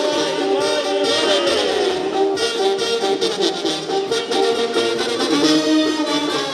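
Brass band music, horns playing a held melody over a steady percussion beat.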